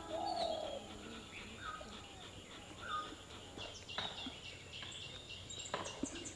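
Wild birds calling with short chirps over quiet outdoor ambience, with a few sharp light clicks about four and six seconds in.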